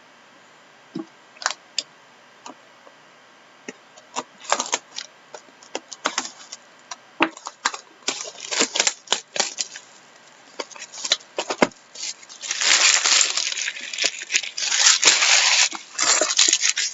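Trading cards and their pack wrappers being handled: scattered sharp clicks and snaps at first, then, from about three-quarters of the way in, several seconds of dense tearing and crinkling as a pack wrapper is torn open.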